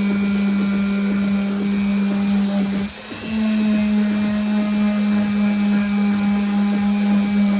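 Electric sander running steadily with 60-grit paper on wooden speaker boxes. Its hum dips briefly about three seconds in, then comes back at a slightly higher pitch.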